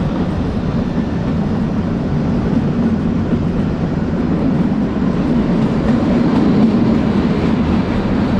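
Kalka–Shimla narrow-gauge toy train running steadily, heard from inside the coach as it passes through a tunnel: a loud, even running noise with a strong low rumble.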